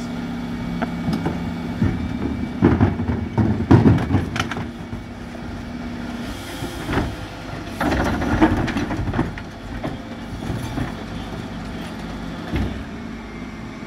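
Dennis Elite 6 refuse truck's Terberg OmniDe bin lift working: the truck hums steadily while plastic wheelie bins are tipped into the body. Two bursts of loud clattering and knocking come from the bins being lifted, emptied and shaken, the first a few seconds in and the second about halfway through. The steady hum drops away near the middle.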